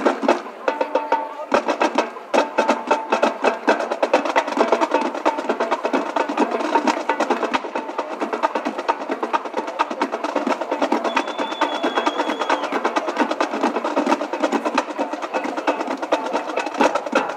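Snare drum section of a fanfare corps playing a fast drum feature: dense rolls and rapid, sharp stick strikes.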